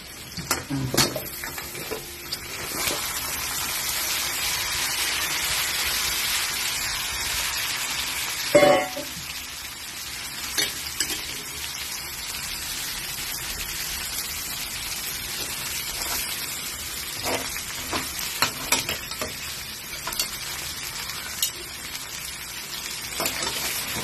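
Blue crabs sizzling in hot annatto oil in a metal pan, a steady hiss that builds in the first few seconds. Scattered knocks and clatters of the shells against the pan as they are moved, the loudest about a third of the way in.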